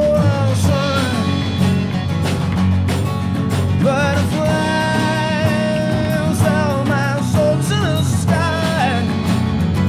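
A band playing a song: drum kit, bass guitar and guitar, with a wavering melody line over the top that holds one long note about halfway through.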